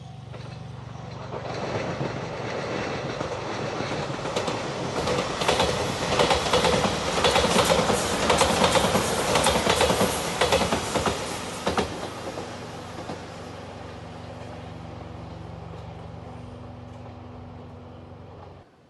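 Train passing over a level crossing at speed, its wheels clattering over the rail joints. The noise builds from about a second in, is loudest in the middle with rapid clicks, then fades to a low hum and cuts off just before the end.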